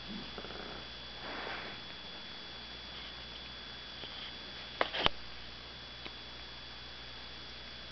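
Dogs sniffing and snuffling at play, a soft breathy snuffle early on, then two sharp clicks close together about five seconds in.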